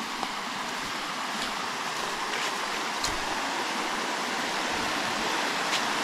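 Small waterfall cascading over rock into a shallow stream: a steady rush of water that grows gradually louder, with a couple of faint clicks.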